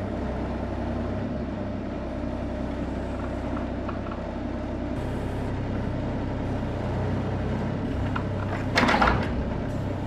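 Hitachi mini excavator's diesel engine running steadily. A brief, louder noise breaks in about nine seconds in.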